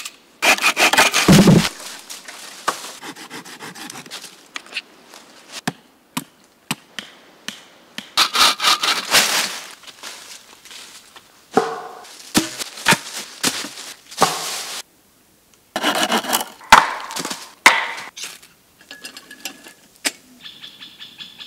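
Hand saw cutting wood in several bursts of quick back-and-forth strokes, with pauses and a few single knocks between the bursts.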